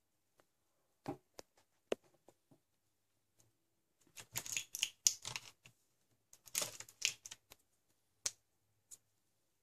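Plastic markers being handled: a few scattered clicks, then two bursts of light clattering about four and six and a half seconds in.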